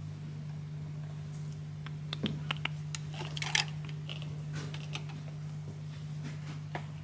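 A run of light clicks and taps, mostly from about two to five seconds in with one more near the end, over a steady low hum.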